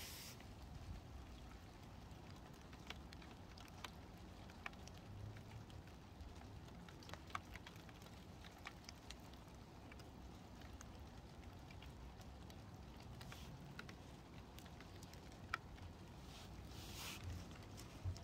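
Faint, scattered light ticks and crackles of soil crumbling and roots rustling as fingers tease apart broccoli seedlings, with a soft rustle near the end.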